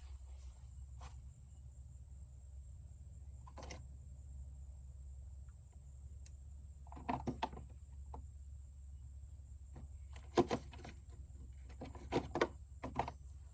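A few short clunks and clicks, in small clusters about seven, ten and twelve seconds in, over a low steady hum.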